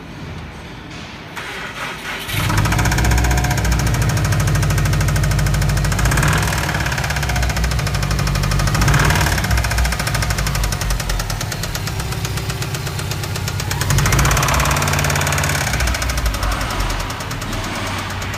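Subaru WRX STI's flat-four engine cranked by the starter and catching about two seconds in, then running with a rapid, steady knock and revved up briefly three times: the knock of a spun bearing.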